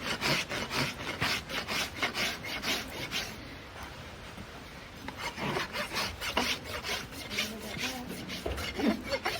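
Farrier's rasp filing a horse's hoof in quick strokes, about four a second, pausing for a second or so a few seconds in before the strokes resume.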